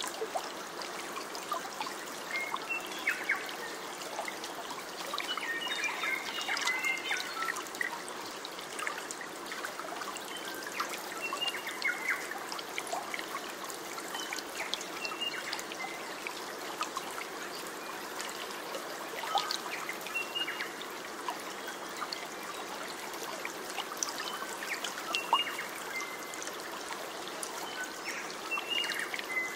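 Water trickling in a small stream, a steady babble, with birds chirping now and then over it, a burst of calls about six seconds in.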